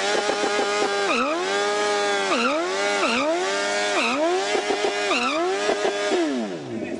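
Red sport motorcycle's engine revved hard while standing still: the throttle is held high and snapped shut about six times, the pitch dropping sharply each time and climbing straight back.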